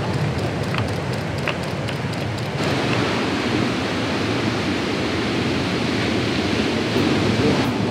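Ocean surf and wind: a steady rushing hiss that steps up louder and brighter about two and a half seconds in.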